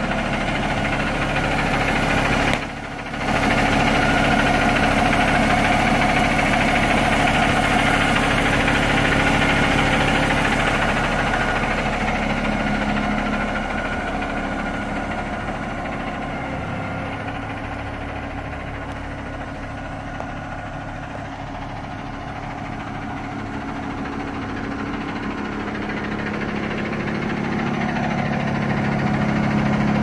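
Concrete mixer truck's diesel engine idling steadily, with a short drop in level about three seconds in. It grows quieter in the middle and louder again near the end as the microphone moves along the truck.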